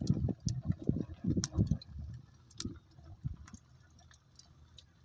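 Split-log wood fire burning in a brick grill's firebox, crackling with scattered sharp pops and snaps. Low gusty rumbling comes in bursts during the first two seconds, then fades, leaving the crackles.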